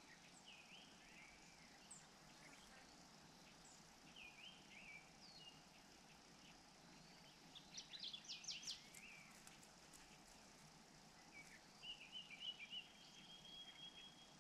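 Faint bird chirps and short calls over a steady background hiss, with a quick burst of sharp chirps about eight seconds in and a brief trill near the end.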